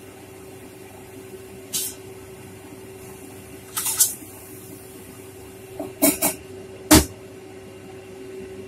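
A metal spatula clanking and scraping against a stainless steel wok as vegetables are stir-fried. There are a few sharp clatters, and the loudest one, about seven seconds in, comes as the metal lid goes on. A steady hum and a light hiss run underneath.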